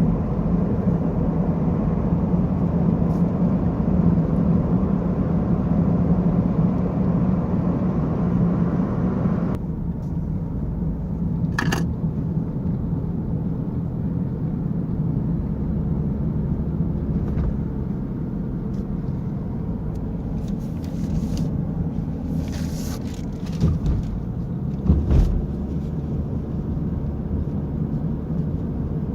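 A car driving, with a steady low engine drone and road noise. The higher hiss drops away about ten seconds in, and a few short knocks come near the end.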